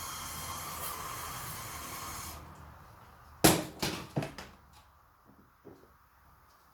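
Aerosol lubricant spraying steadily for a couple of seconds and stopping abruptly, as lubricant is sprayed inside a heated grip and onto the handlebar. About a second later comes a loud knock followed by a few lighter knocks.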